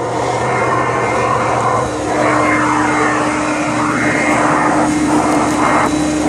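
Hoover Conquest commercial upright vacuum running with suction through its attachment hose: a loud, steady rush of air with swishing rises and falls as the tool is worked. A steady hum joins the rush about two seconds in.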